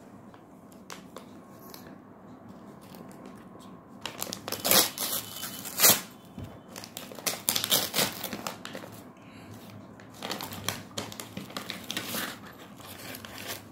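Gift wrapping paper being torn open and crumpled by hand. It is quiet for the first few seconds, then comes in bursts of loud tearing and rustling.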